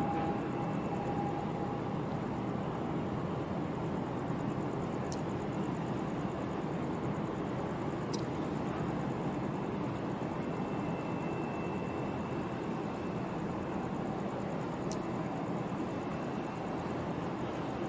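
Steady low rumble of a large container ship's engine as the ship passes close by, with a few faint, brief high ticks.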